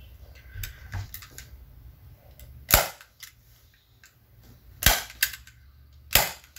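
Staple gun firing staples through upholstery fabric into a bamboo chair's seat frame: three sharp snaps about a second and a half apart, with a lighter one between the second and third, and faint handling noise from the fabric between shots.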